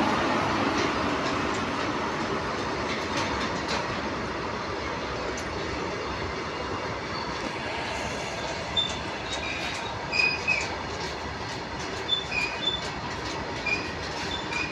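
Freight train of covered goods wagons rolling past behind a WAG-7 electric locomotive: a steady rumble of wheels on rail with clacks over the rail joints, loudest at the start as the locomotive goes by and easing as the wagons follow. From about halfway, the wagon wheels give short high squeals, several in quick succession.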